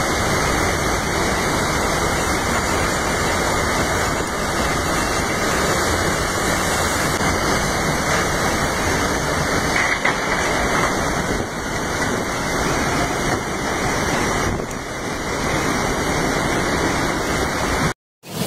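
Cyclone wind and heavy rain: a loud, steady rushing noise that cuts out abruptly near the end.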